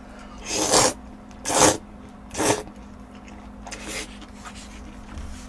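Three loud slurps as a mouthful of black-bean-sauce noodles (jjajangmyeon) is sucked in, each a short airy hiss, about a second apart; only faint sounds follow.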